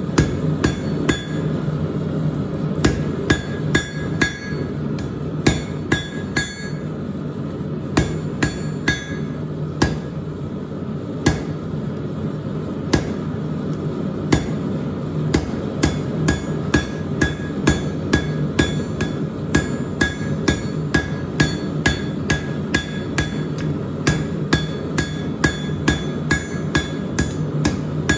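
Hand hammer striking hot square steel bar on an anvil, each blow ringing briefly. The blows come unevenly at first, thin out for a few seconds, then settle into a steady rhythm of about two a second, over a steady low rumble.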